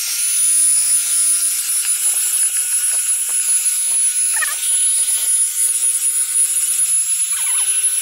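RNG Eko Green handheld car vacuum cleaner running at full suction: a loud, steady rushing hiss with a thin high-pitched whine, and faint scattered ticks of grit being sucked up off the floor mat.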